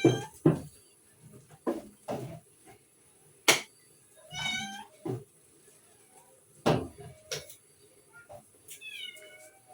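A cat meowing twice, the second meow falling in pitch, between several sharp knocks.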